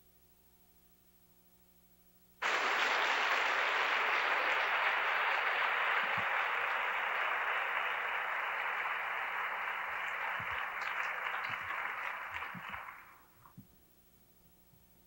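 Conference audience applauding: the applause starts suddenly a couple of seconds in, holds steady, then thins out and dies away near the end.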